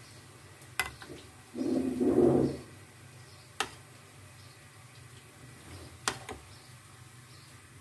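Light clicks of a spoon against a plate as butter sauce is spooned over the chicken: four sharp clicks spread over several seconds, with a brief low hum about two seconds in.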